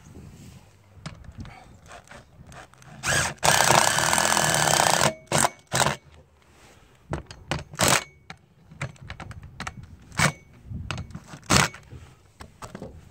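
Cordless drill driving lag bolts through a satellite dish roof mount into a roof truss: one long run of about two seconds, then several short bursts as the bolts are snugged down.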